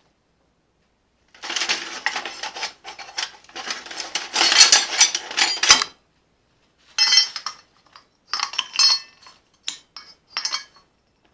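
Steel clinking and scraping against metal in a long stretch of busy clatter, loudest just before the middle, then a handful of short rattles, like tools or bar stock being handled at the forge.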